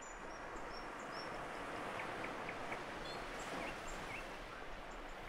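Outdoor ambience: small birds chirping and whistling in short, scattered calls over a steady rushing hiss.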